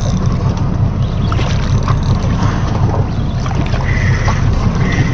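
Steady low rumble aboard a fishing boat at sea, with two short, faint high whines near the end.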